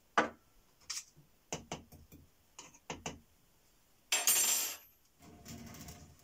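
A string of light clinks and taps from a small glass beaker and metal spatula being handled, then about four seconds in a short, loud scrape. Near the end comes a lower rubbing sound as the plastic lid of a chemical tub is gripped and turned.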